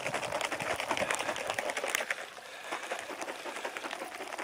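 An MRE drink pouch of water and drink powder being shaken by hand to mix: rapid rustling of the plastic pouch with liquid sloshing inside.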